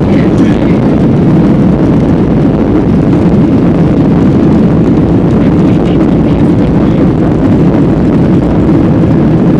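Airliner cabin noise during takeoff: a steady, loud, low rush of engines and airflow heard from inside the passenger cabin.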